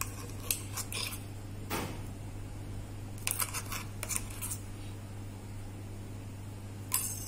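Steel spoon scraping and clinking against a mixer jar and a glass bowl as thick chutney is spooned out: scattered short scrapes and taps, a burst of them around three to four seconds in and one more near the end, over a low steady hum.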